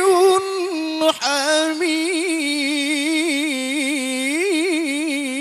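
Male Quran reciter chanting into a microphone, drawing one word out into a long melismatic phrase with quick wavering ornaments in the pitch, after a short catch about a second in.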